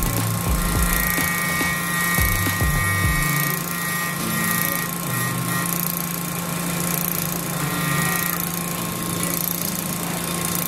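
Small bench-mounted rotary cutting bit running steadily, with a constant motor hum, as the rim-lock area of a soldered metal eyeglass frame is trimmed against it after soldering. A thin steady whine comes in about a second in and again near the end.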